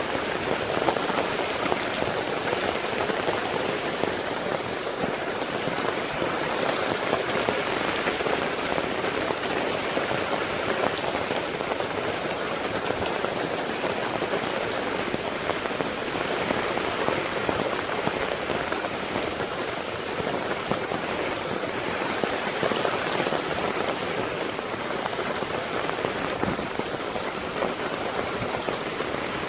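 Heavy rain falling steadily, a dense even hiss with the patter of drops on the ground and surfaces.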